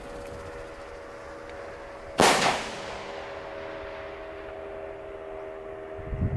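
Homemade aerial firework shell bursting with a single loud bang about two seconds in, its report echoing and dying away over the next few seconds.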